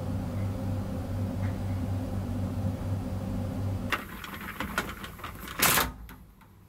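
A steady low hum, then about four seconds in a click and a run of rattling as a capsule cabin's roll-up privacy screen is pulled open by its bottom bar, with a loud brief rush near the end as it goes up.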